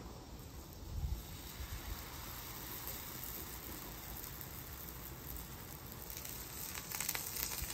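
Naan dough sizzling steadily on a hot, oiled flat-top griddle, with a few light taps near the end.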